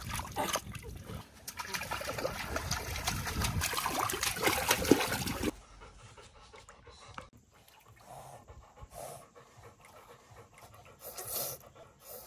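Water splashing and sloshing in an inflatable paddling pool, loud and busy for about the first five seconds. It stops suddenly, and then a chocolate Labrador pants quietly in soft puffs.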